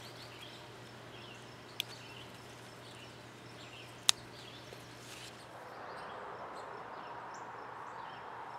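Faint outdoor garden ambience with small birds chirping now and then over a steady low hum. There are two sharp clicks, about two seconds apart, and a soft hiss rises a little after the middle.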